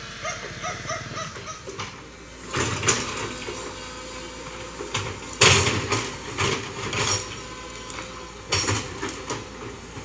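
Tracked hydraulic excavator working soil: its diesel engine runs steadily under three loud knocking, scraping bursts from the bucket, about two and a half, five and a half and eight and a half seconds in, the middle one the loudest.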